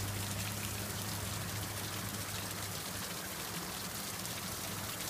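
Stream water rushing steadily over the falls at the old sawmill site, with a low steady hum underneath that fades out about halfway through.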